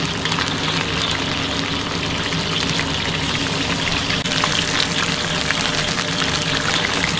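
Fried mackerel and aromatics (scallion, ginger, garlic) sizzling steadily in hot oil in a wok, with small crackles throughout.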